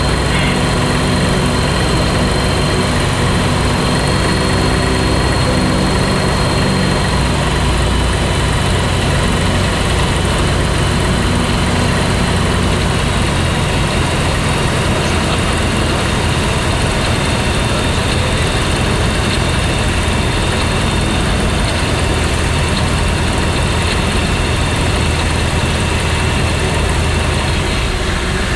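Light single-engine aircraft's piston engine and propeller running steadily, heard from inside the cockpit with a strong rush of air noise. The engine's pitched hum thins out about seven seconds in, leaving mostly the steady rush, as the plane descends to land on a grass strip.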